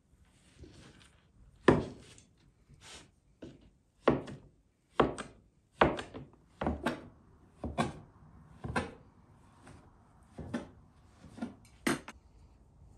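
Metal dough scraper chopping a log of dough into pieces, each cut ending in a sharp knock of the blade on a wooden board: about a dozen knocks, roughly one a second.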